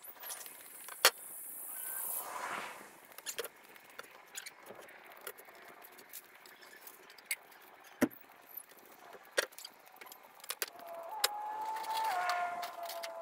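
Lumber being handled on a concrete floor: scattered knocks and clicks, with one heavier thud about eight seconds in and a short wavering whine near the end.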